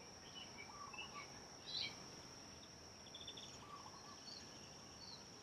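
Faint garden ambience: scattered short bird chirps over a steady high-pitched whine.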